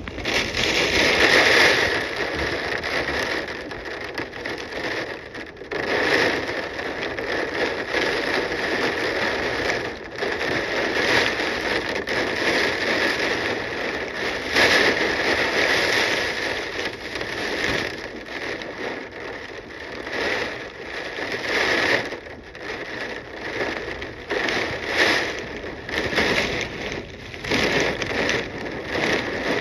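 Hurricane wind gusting with heavy rain, a loud rushing noise that surges and drops every few seconds, with crackling from leaves and rain hitting the microphone.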